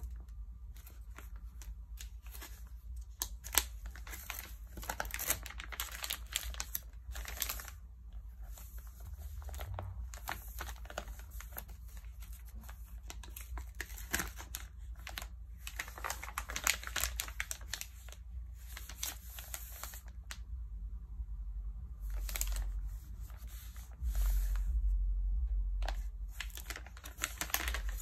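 Glossy magazine pages handled and turned by hand: crisp, irregular crinkling and rustling of the paper. A louder low rumble comes in for about two seconds near the end.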